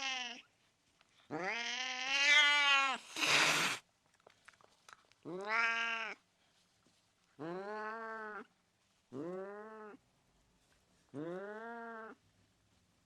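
Domestic cat giving a series of drawn-out angry meows, each rising and then falling in pitch, about six in all with short gaps between. About three seconds in, right after the longest call, comes a short hiss.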